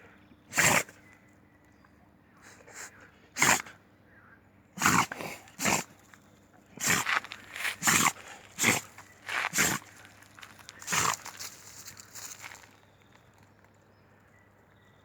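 A dog sneezing repeatedly: about a dozen short, sharp sneezes, several coming in quick succession in the middle.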